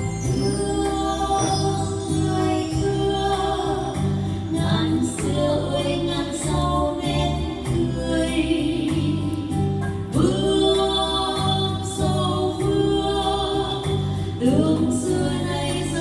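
Two women singing a duet into microphones over live keyboard accompaniment with a steady bass rhythm. New sung phrases slide up into pitch about ten seconds in and again near the end.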